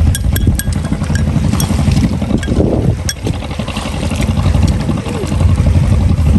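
Small boat's engine running steadily with a low rumble, and scattered sharp clicks over it.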